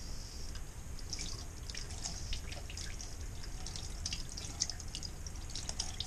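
Thin stream of water running from a wall-mounted faucet into a stainless steel sink and splashing over a hand held under it. It makes an irregular patter of splashes and drips that starts about half a second in.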